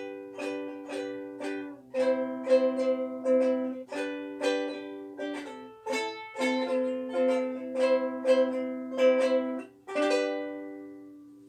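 Ukulele strummed in a steady rhythm, changing chord every few seconds. It ends on a single chord left to ring and die away.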